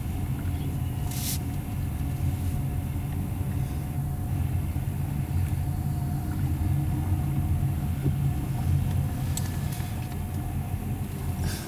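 Car driving slowly, a steady low rumble of engine and road noise. A short sharp high noise sounds about a second in.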